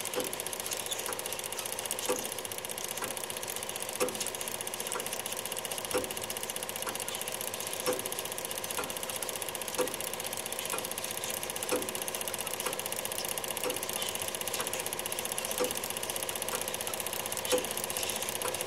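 Film projector running: a steady fast whirring rattle with a sharper click about once a second.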